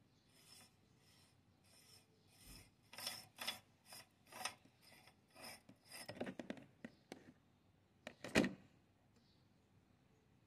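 Threaded retaining ring on a metal meat grinder's head being turned by hand, metal threads rasping in short strokes about twice a second, with a louder scrape about eight seconds in.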